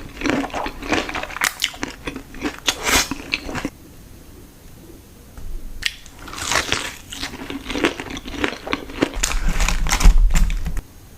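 Close-miked crunching of a crispy fried chicken tender being bitten and chewed: dense crackly crunches, a pause of about two seconds in the middle, then more crunching. A low rumble comes near the end and is the loudest moment.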